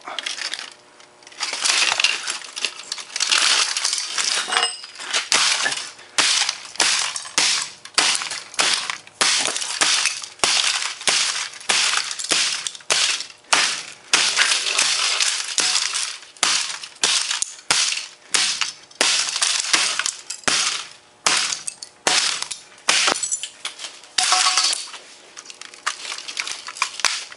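Clattering, cracking and scraping of a smashed Compaq Presario F500 laptop's motherboard, heatsink and broken casing being pried and pulled apart by hand to free the processor: a dense run of irregular clicks and knocks.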